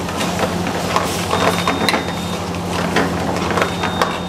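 Steel ladle scraping and knocking against a steel frying pan while stirring a thick pasta sauce with vegetables: a quick, irregular run of clicks and scrapes over a steady low hum.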